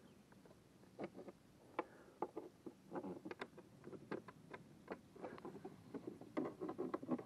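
Irregular light clicks and knocks of the kayak's plastic deck plate and hull fittings being handled and fitted back into place, several a second, busiest about three seconds in and again near the end.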